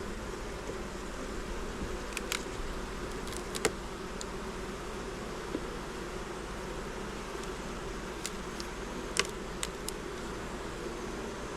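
Honeybees buzzing in a steady hum from an open hive, with a few sharp clicks and taps, of the kind hive frames and tools make when handled, at about 2, 3.5, 8 and 9 seconds in.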